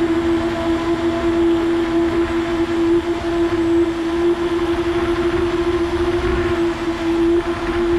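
FPV quadcopter's electric motors and propellers whining at a steady pitch, heard from the camera on board, over a low rumble of wind and propeller wash.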